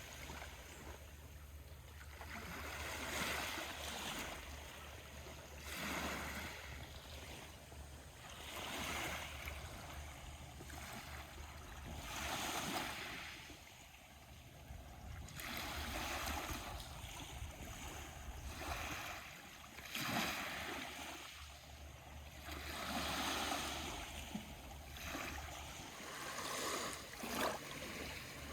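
Small waves of the Aegean Sea washing in and drawing back, rising and falling every three to four seconds, over a steady low rumble that stops near the end.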